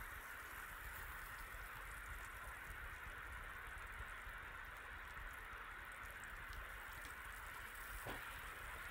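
Salmon fillet frying in oil in a non-stick pan, a steady faint sizzle, with a light knock of the spatula against the pan about eight seconds in.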